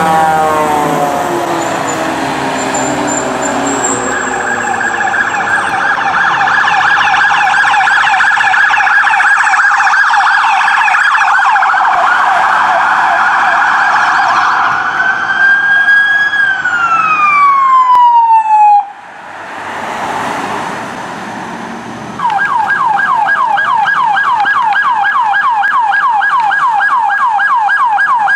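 Emergency vehicle sirens: a deep siren winding down at the start, then a fast electronic yelp siren that rises once more, glides down and stops about 19 s in. After a few seconds of quieter hiss, another fast yelp siren starts up and runs on.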